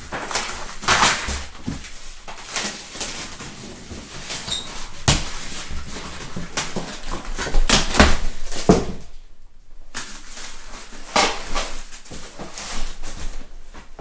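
Polystyrene foam packaging squeaking and scraping as a foam shipping box is worked loose and its lid pulled off, with cardboard rustling and knocks.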